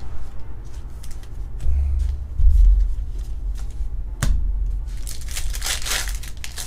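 Foil Pokémon booster pack being torn open and crinkled by hand, the crinkling starting about five seconds in. Before that, cards are handled and set down, with a few low thumps and a sharp click.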